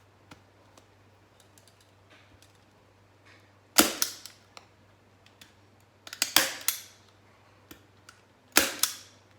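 Staple gun firing three times, about two and a half seconds apart, driving staples through plastic shower-liner sheeting into a crate seat, with small clicks and handling noises between the shots.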